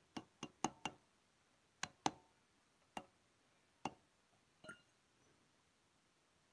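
Light metal-on-metal taps and clinks at a tractor's front wheel hub and wheel nuts: five quick sharp clicks in the first second, then single taps spaced about a second apart, the last one ringing briefly.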